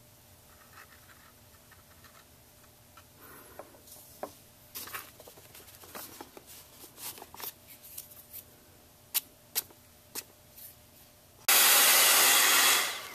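Light rustles and taps of a kraft paper bag being handled and excess embossing powder tipped off it, then an embossing heat gun switches on about three-quarters of the way in and blows with a loud, steady rush, easing off near the end.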